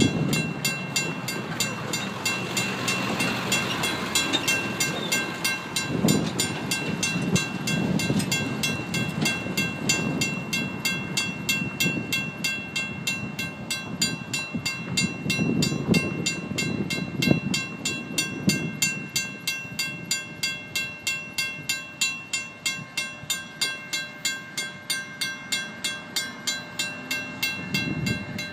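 A WCH mechanical crossing bell on a railroad crossing signal rings steadily at about three strikes a second, with a clear ringing tone. Low gusts of wind on the microphone come and go under it.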